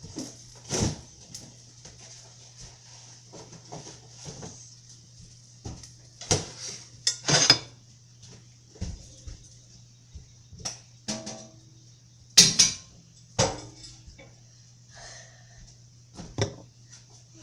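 Metal utensils clinking and scraping against dishes and a pan in irregular sharp knocks, a dozen or so.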